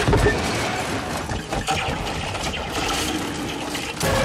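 Film action sound effects of a heavy military truck speeding and jolting: a loud, steady noisy rush, with a hard knock at the start and another loud hit about four seconds in.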